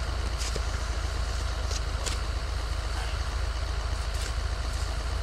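A vehicle engine idling steadily, a low, even rumble, with a few faint clicks over it.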